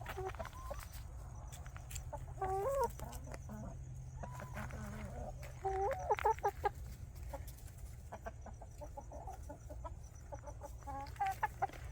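Chickens clucking and calling, a hen and a young rooster answering each other through a fence. The calls come in short bursts with rising and falling pitch, the loudest about two and a half, six and eleven seconds in.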